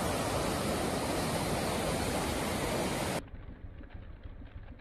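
Steady rushing of a swollen, fast-flowing creek running over rocks. It cuts off suddenly about three seconds in, leaving a much fainter, duller background noise.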